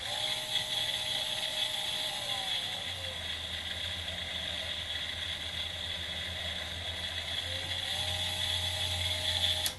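A micro 72W rotary tool running with a cutting disc in its chuck: the small permanent-magnet DC motor whines, and its reduction gearbox is plainly heard. The speed is turned down about two and a half seconds in and back up near eight seconds, and the motor cuts off suddenly near the end.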